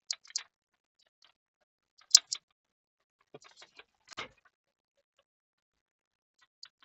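A few small, sharp clicks and taps of small laptop parts and tools being handled and fitted back during reassembly: a pair at the start, a louder double click about two seconds in, and scattered light ticks around three to four seconds.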